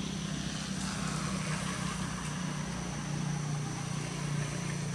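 A motor engine running steadily, a continuous low hum, with a thin steady high tone above it.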